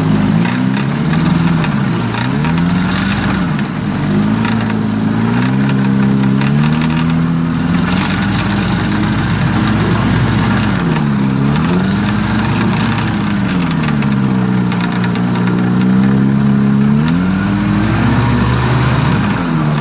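A 1954 Evinrude Fleetwin 7.5 hp two-cylinder two-stroke outboard runs in a test tank. The throttle is worked down and back up several times, so engine speed falls and rises again, and it picks up quickly each time.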